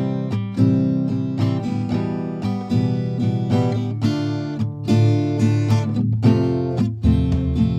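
Background music: an acoustic guitar playing quick picked and strummed notes.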